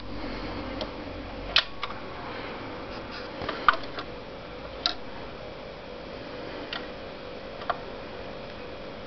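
Dual 1229 turntable running with a record spinning on the platter: a steady faint hum and hiss with a few sharp clicks scattered through.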